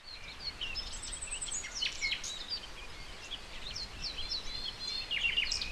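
Several songbirds calling and chirping at once, with short rising and falling whistles and a quick high trill about a second in, over a faint low background rumble.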